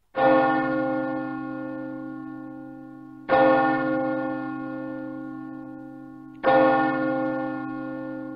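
A deep church bell struck three times, about three seconds apart. Each stroke rings out and slowly fades before the next.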